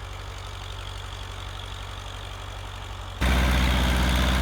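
The engine of a small snow-plowing vehicle runs at a steady speed while it struggles for traction in deep snow. About three seconds in it abruptly gets much louder.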